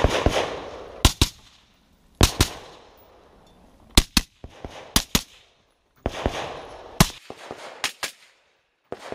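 Rifle shots fired in a string: more than a dozen sharp reports, mostly in quick pairs with short pauses between, each ringing briefly.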